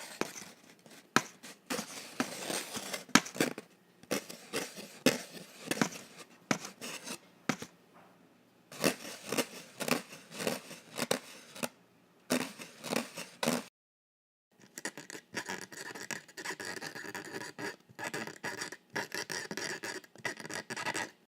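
Scratching and scraping with many sharp clicks, then a cut to a second second-long silence and a busier scratchy stretch with faint steady tones underneath.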